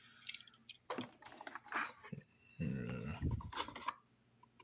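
Handling noises from a diecast toy car and its small cardboard box: light clicks and taps, then the box rubbing and scraping in the hands, loudest around three seconds in.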